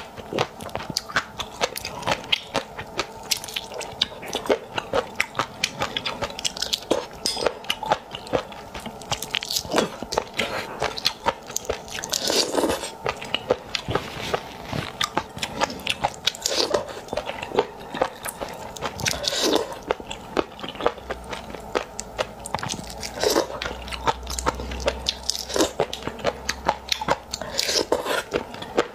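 A person chewing and biting raw seafood into a close clip-on microphone: a dense run of sharp mouth clicks, with louder bites every few seconds.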